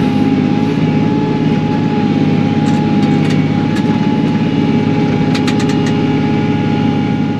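Kioti NS6010 compact tractor's diesel engine running steadily while the loader skims topsoil, with a steady whine over the engine. A few sharp ticks come about halfway through and again near the end.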